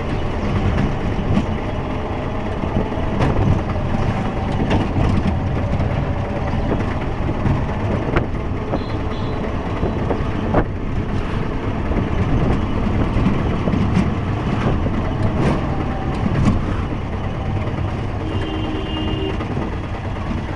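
Auto-rickshaw (tuk-tuk) engine running steadily under way in traffic, with rattles and a few short horn beeps near the end.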